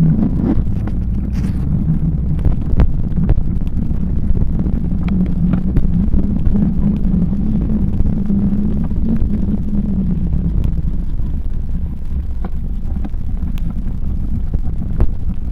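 Wind buffeting the microphone over the low rumble of bicycle tyres rolling on tarmac, then gravel and a dirt path, with scattered clicks and knocks from the bike rattling over the rough ground. A low hum fades out about ten seconds in.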